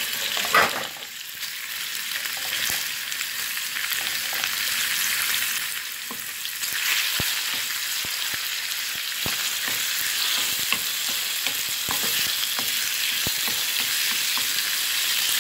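Diced raw chicken breast sizzling in hot cooking oil in a frying pan, with a steady hiss, while a wooden spatula stirs it and knocks against the pan now and then, more often in the second half.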